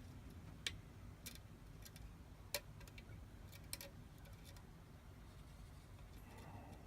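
A handful of faint, sharp clicks from a hook pick and tension wrench working the pin stack of a Schlage KIK lock cylinder, spread irregularly over several seconds.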